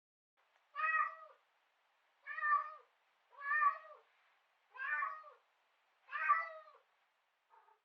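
A domestic cat meowing: five short meows about a second and a half apart, then a faint brief sixth near the end.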